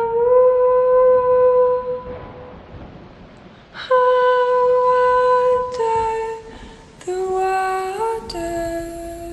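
Opening of a slow background song: a melody of long, held notes with a humming, wind-instrument-like tone. Each note is sustained for a second or two, and the melody steps downward in pitch during the second half.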